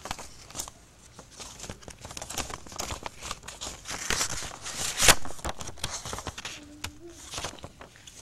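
Paper rustling and crinkling as cards are handled at a table, in a dense run of short crackles, the loudest about five seconds in.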